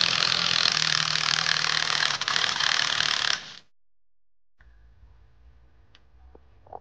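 Defective gearbox-side ball bearing from a Renault Zoe R240 drive unit being turned, giving a steady rough grinding, milling noise: the sign of a worn, failing bearing. It cuts off suddenly about three and a half seconds in, leaving quiet room tone with a few faint clicks.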